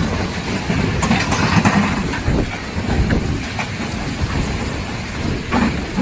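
Storm-force wind gusting across the microphone, a heavy, steady low rumble with scattered knocks and clatters of things being blown about.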